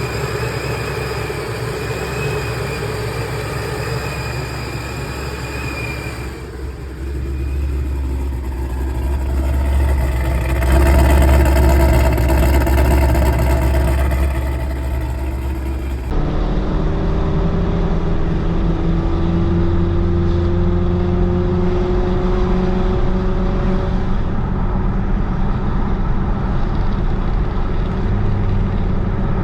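The Procharged 6.0-litre LS2 V8 of a 2006 Pontiac GTO running, its engine note rising and falling. About halfway through the sound changes abruptly, and then a steady drone climbs slowly in pitch as the car gathers speed.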